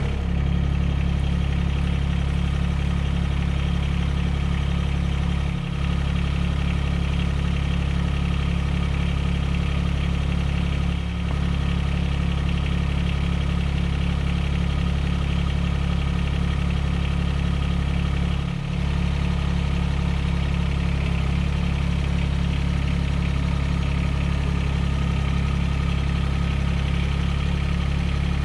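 Mahindra eMax20S compact diesel tractor engine running at a steady speed, with three brief dips in level.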